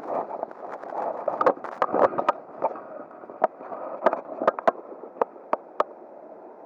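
River water running, with irregular splashes and knocks close to the microphone, like water being stirred or sloshed by hand or by wading.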